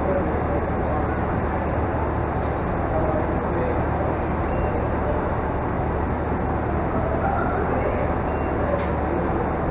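Steady rumbling background noise with a low hum underneath and no distinct events.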